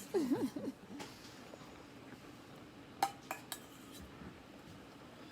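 Cutlery and dishes clinking: a few sharp clinks in the first second and another cluster about three seconds in.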